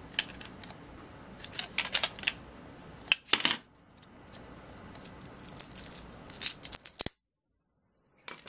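Hard plastic power bank casings and mid frame being handled: a scatter of clicks, taps and scrapes as the parts knock and slide against each other. The sound cuts off suddenly about a second before the end.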